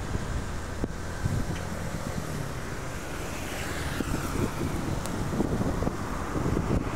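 Wind buffeting a phone's microphone in uneven gusts, with road traffic running underneath; a vehicle seems to pass about three to four seconds in.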